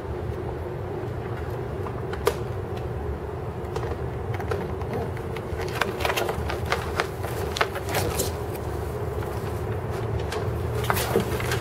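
Crackling and rustling of dry nesting straw and cardboard, many sharp clicks, from about halfway through, as a hand reaches into a pigeon's nest box and the bird moves off its egg. Under it runs a steady low hum of outdoor city background.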